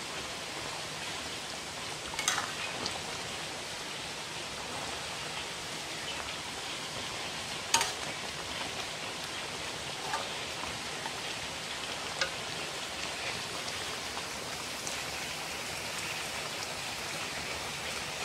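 Chicken and pineapple curry in coconut milk simmering in a metal pan with a steady hiss, nearly cooked, while a metal ladle stirs it and clinks against the pan a few times, the loudest about eight seconds in.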